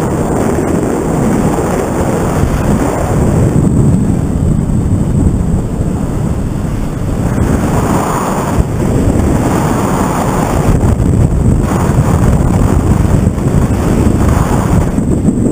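Loud, gusting wind noise from the airflow buffeting an action camera's microphone held out on a pole during a tandem paraglider flight.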